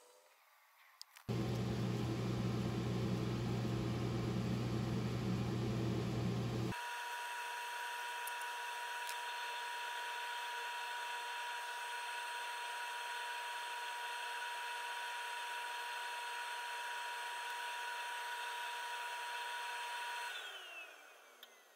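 Wood lathe running, spinning a bottle stopper on a mandrel while it is polished with abrasive paste on a paper towel. It starts suddenly about a second in with a deep hum, changes to a steadier, higher whine about seven seconds in, and winds down near the end with its pitch falling.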